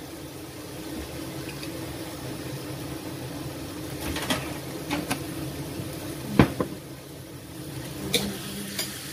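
Vegetables and shrimp cooking in a pot of liquid on the stove, with a steady hum and a few sharp clinks of a utensil against the pot, the loudest about six and a half seconds in.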